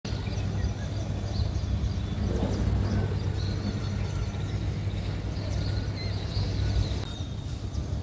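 Steady low outdoor rumble, with faint short bird chirps scattered over it.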